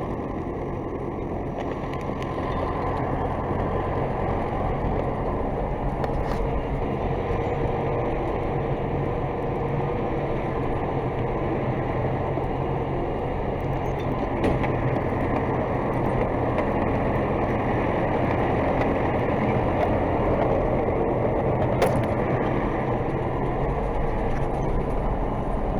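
DT-75 crawler tractor's diesel engine running steadily, with a few faint knocks along the way.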